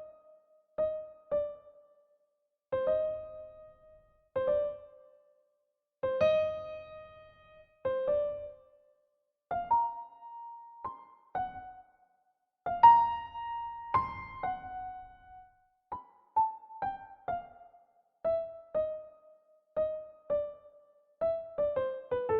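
Slow, sparse solo piano melody: single notes, now and then two together, each struck and left to fade, with short silences between phrases.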